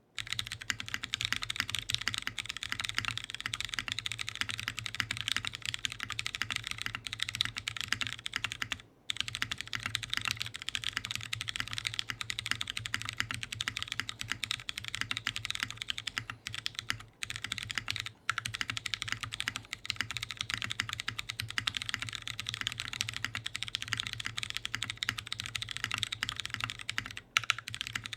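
Continuous fast typing on a custom top-mount mechanical keyboard with an aluminium plate, GHv4-lubed Hyperglide Clear switches and DCS keycaps: a dense patter of keystrokes. There is a brief break about nine seconds in and a few shorter pauses later.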